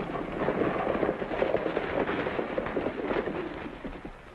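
Several horses galloping on a dirt street, a dense clatter of hoofbeats that eases off near the end as the riders pull up.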